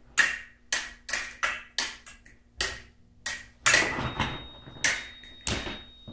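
Fencing blades clashing in a bout: a run of sharp metallic clinks, two or three a second. About four seconds in, an electric scoring box starts a steady high tone and holds it, signalling a touch.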